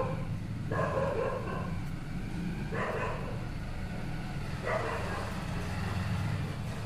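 A dog barking, three single barks about two seconds apart, over a steady low rumble.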